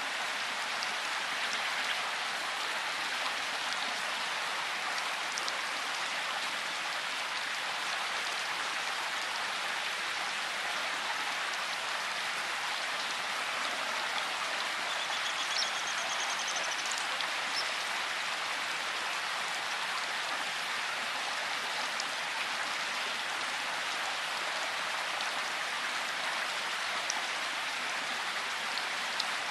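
Vehicle tyres rolling over a dirt, gravel and dead-leaf lane: a steady, even hiss of grit and leaves under the wheels, with no engine rumble heard.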